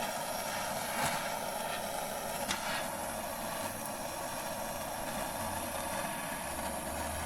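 Blowtorch flame burning steadily with an even hiss as it heats the paint on a steel door hinge until the paint bubbles, with a couple of faint ticks along the way.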